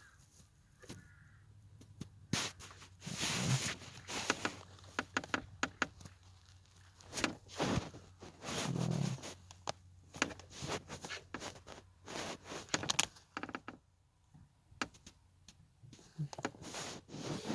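Hands working the plastic gauge cluster and dash trim as bulbs are fitted back in: irregular clicks, scrapes and knocks with short pauses between them.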